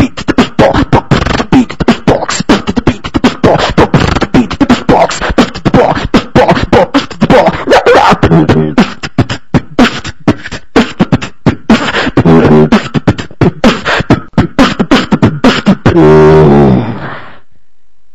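Live solo beatboxing through a single microphone: fast mouth-made drum beats with sung bass and melody lines woven in. About sixteen seconds in, it ends on a long, loud held low note that dies away about a second later.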